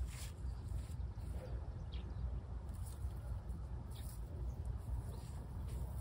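Outdoor ambience: a steady low rumble with a few brief high chirps, likely small birds, and scattered soft rustles.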